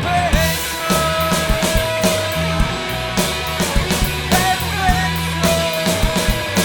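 Rock band playing an instrumental break: a lead electric guitar holds long notes with bends over bass guitar and a drum kit with steady cymbal hits.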